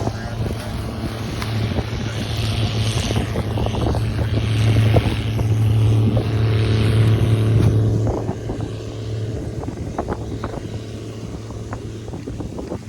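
Large diesel farm machine running steadily, growing louder over several seconds and then dropping off sharply about two-thirds of the way in, with wind buffeting the microphone.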